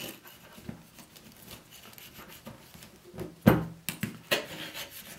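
Metal pie server cutting through a baked pie crust with faint scraping and crunching, then a sharp knock about three and a half seconds in and a few lighter clacks as the server and the metal pie tin are handled.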